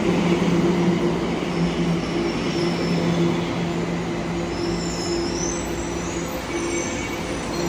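Tokyo Metro subway train running, with a steady low hum over a rumble. The sound eases slightly as it goes on.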